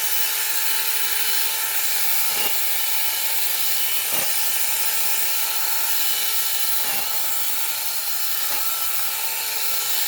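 Small 6-inch cordless battery chainsaw running with a steady whine, its chain cutting through a tree branch.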